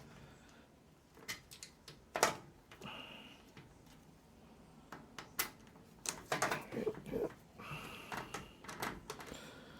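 Scattered light clicks and taps of a screwdriver and small screws being worked into a case fan's mounting holes in a PC case, with a denser run of clicks about six to seven seconds in.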